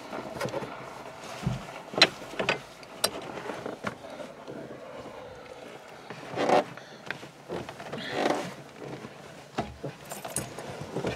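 Irregular clicks, knocks and short rustles of people moving about inside a stopped Jeep, over a faint steady hum.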